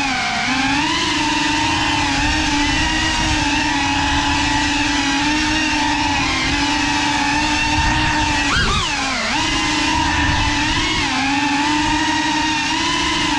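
GEPRC Cinelog 35 cinewhoop FPV drone's motors and propellers whining steadily in flight. About eight and a half seconds in, the pitch rises sharply and then dips below its steady level before settling back.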